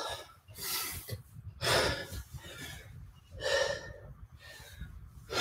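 A man breathing hard from exertion during a high-intensity kettlebell workout: three loud, rough exhales, about a second and a half to two seconds apart.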